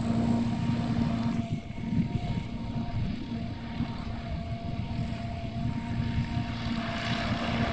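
P-51 Mustang's V-12 piston engine and propeller running at taxi power: a steady drone with a low hum. It grows louder and harsher about seven seconds in.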